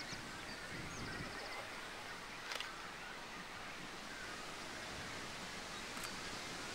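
Quiet outdoor ambience: a soft steady rustle of wind and leaves, with a few small bird chirps and a quick trill in the first second or two, and two faint clicks later on.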